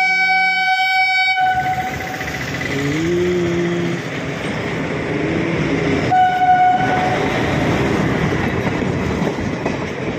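Electric locomotive sounding its horn as it hauls a passenger train past at speed. One long blast ends about a second and a half in, and a second, shorter blast comes about six seconds in. Between and after the blasts there is a continuous rumble and clatter of wheels on the rails as the coaches go by.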